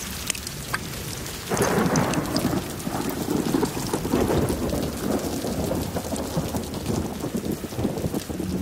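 Heavy rain falling and pattering into standing water, with a long roll of thunder rumbling in about a second and a half in.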